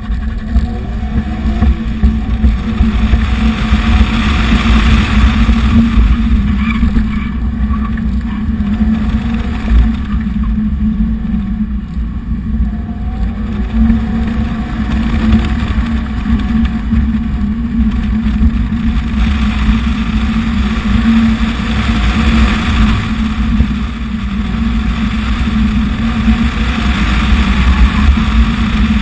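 BMW car's engine driven hard, its note rising and falling as it accelerates and brakes, under heavy low rumble and wind noise on the in-car microphone.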